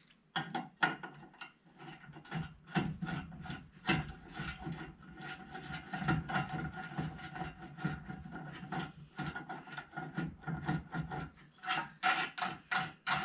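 Wooden pieces being handled, with irregular knocks and scraping of wood on wood, over a faint steady hum.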